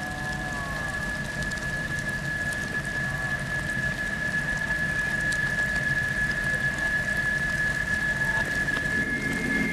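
Water rushing and splashing over rocks, a steady noise that slowly grows louder. A steady high tone runs over it and jumps to a higher pitch near the end.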